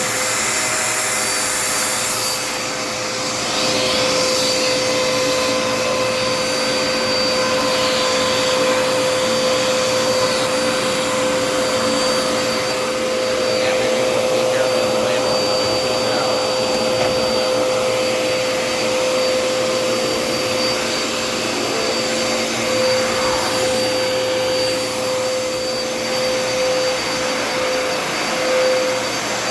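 Dirt Devil Endura Reach vacuum running steadily, a continuous motor noise with a steady whine.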